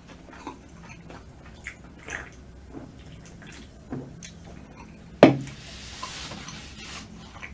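Drinking from an aluminium soda can: a few soft gulps and swallows, then the can set down on the wooden table with a sharp knock about five seconds in, followed by a short hiss.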